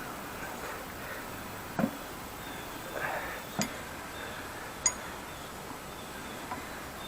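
A few light metallic clinks and knocks from the rusty post vise's screw and jaw being worked apart by hand, three sharp ones spread through the middle and a faint one near the end.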